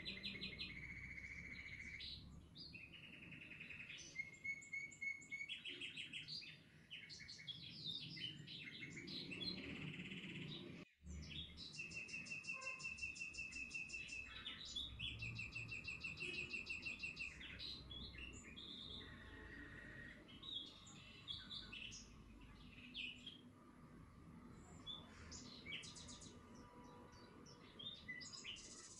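Small songbirds singing: rapid trills, repeated chirps and held whistled notes, with a brief break about eleven seconds in.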